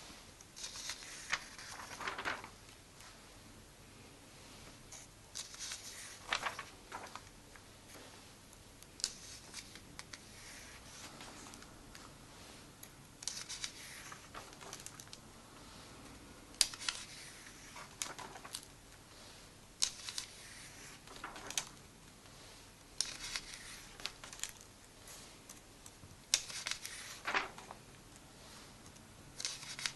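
Glossy paper pages of a comic book being turned and pressed flat by hand, a short papery rustle every one to three seconds.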